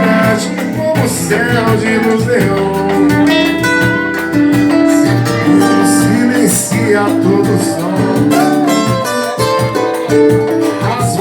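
Acoustic guitar playing the accompaniment to a Brazilian pop ballad, with plucked and strummed notes running on continuously.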